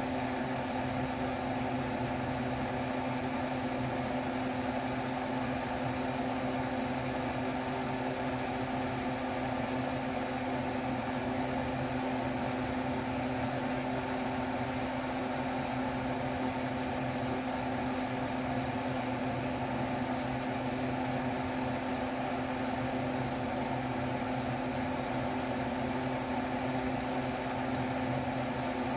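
A fan motor running steadily, a constant whir with a low hum under it.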